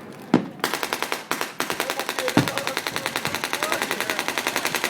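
Fireworks: a single bang, then a long run of rapid crackling pops, about ten a second, with a deeper boom partway through.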